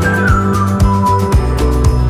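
Background music with a steady beat, held bass notes and a high melody line that slides down at the start.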